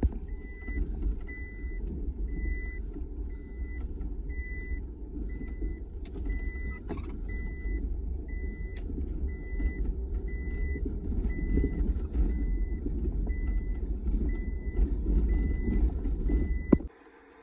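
Sandstorm wind buffeting the microphone in an uneven low rumble, under a vehicle's high electronic warning beep repeating about twice a second. Both cut off suddenly near the end.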